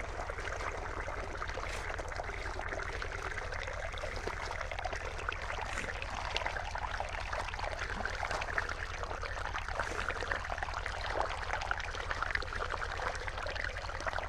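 Water running and trickling over crushed chromite ore as hands stir and sweep the wet sand, with many small gritty scrapes, over a steady low hum.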